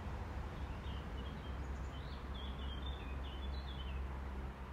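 A bird chirping a run of short, quick notes, faint over a steady low background rumble.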